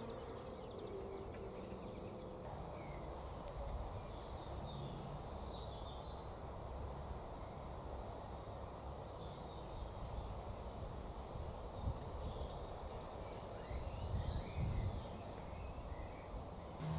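Outdoor ambience: a steady low background rumble with scattered faint chirps of distant birds, and a few low thumps about twelve and fourteen seconds in.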